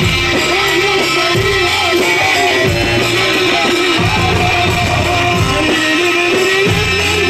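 Egyptian sha'bi wedding band playing an instrumental break: a bright, ornamented, wavering melody line over a heavy, steady low beat.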